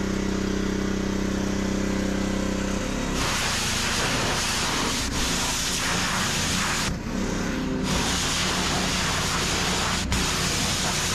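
Petrol-engine pressure washer running steadily; about three seconds in the wand's spray starts, a loud hiss of water blasting the ATV's plastic bodywork over the engine note, with a short break about seven seconds in.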